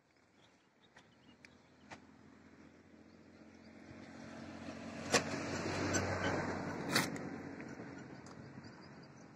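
A motor vehicle's engine and road noise swell to a peak about six seconds in and then fade as it passes, with two sharp clicks near the loudest point.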